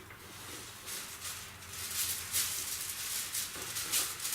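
Rustling and scraping as electrical wiring and a strap are handled and positioned by hand in a ceiling cavity, in irregular short strokes, the loudest about two and four seconds in.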